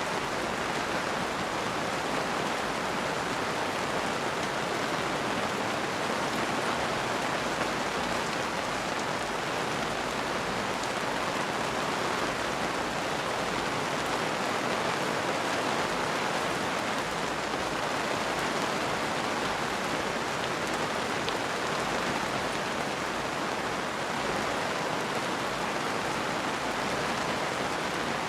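Steady rain falling, an even hiss that does not change, with no thunder.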